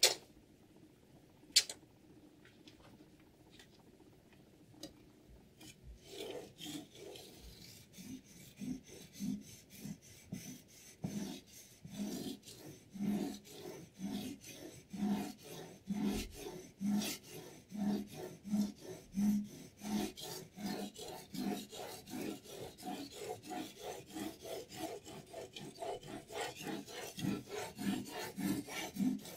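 Water whetstone on a Hapstone T1 guided-rod sharpener rasping back and forth along a knife's edge, in an even rhythm of about two strokes a second that starts a few seconds in. Two sharp clicks come before it, in the first two seconds.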